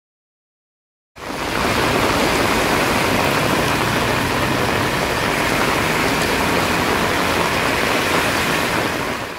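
Heavy rain pouring down on a road, a steady dense hiss that starts suddenly about a second in.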